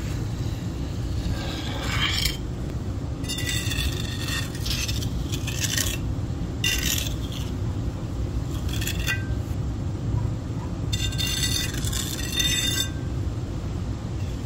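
Metal trowel scraping over a fresh concrete patch, feathering it out in about six strokes with a metallic ring, each lasting a second or so. A steady low rumble runs underneath.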